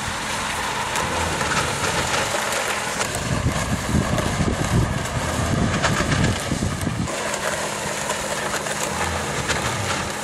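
Opel Insignia test car driving on an open test track: steady engine and tyre noise with a low hum, heavier rumble for a few seconds in the middle.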